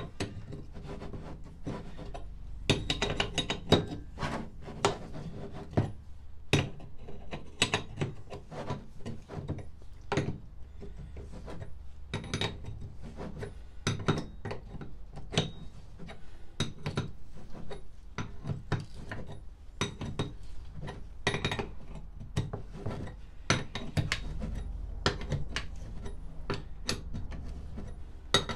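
Irregular metallic clicks, clinks and knocks of a spanner and ratchet working the centre nut of an Andre Hartford friction shock absorber, the rusty steel arms shifting and knocking on the workbench as the bolt is worked undone.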